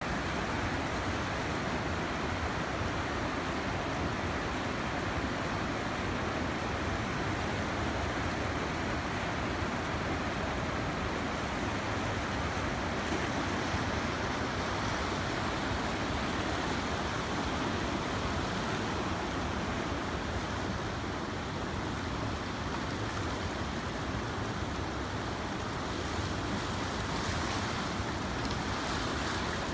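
Steady rush of the fast-flowing Chenab (Chandrabhaga) river, its turbulent water making an even roar.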